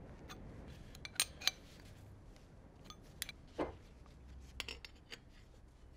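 Scattered small metallic clicks and clinks of threaded air fittings being handled and screwed onto a soldered copper pipe tee: a quick coupling and adapter going on by hand. The sharpest clicks come about a second in, with a duller knock just past the middle.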